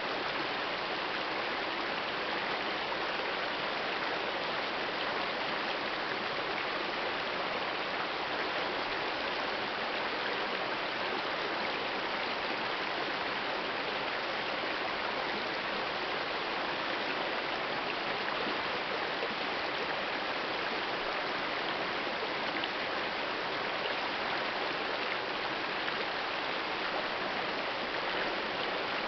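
Shallow, rocky mountain river flowing steadily over stones and around boulders: a constant, even wash of running water.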